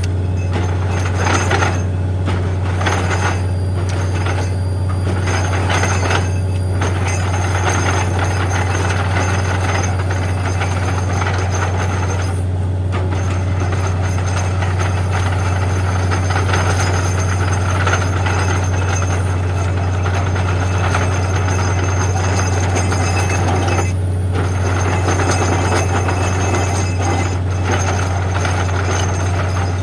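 Borewell drilling rig running: a steady low engine drone under a loud, continuous rushing noise, which drops away briefly a few times.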